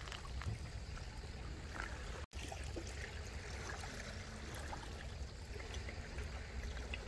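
Hot water poured in a thin stream from a gooseneck kettle onto coffee grounds in a paper-filter pour-over dripper, a steady trickle over a low rumble. The sound drops out for an instant a little over two seconds in.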